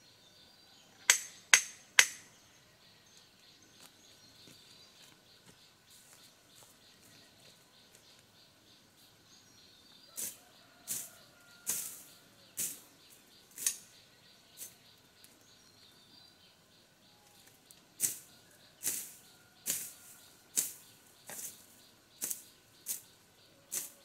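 Three sharp clacks about a second in, then runs of short, crisp cutting strokes, roughly one a second, as grass and undergrowth are cut low to the ground by hand with a blade. A faint steady insect buzz, typical of cicadas, runs underneath.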